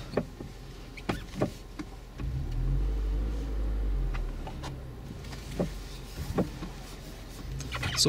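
2016 Scion tC's four-cylinder engine heard from inside the cabin as the car reverses slowly. A low rumble swells about two seconds in and eases off a couple of seconds later, with a few light clicks scattered through.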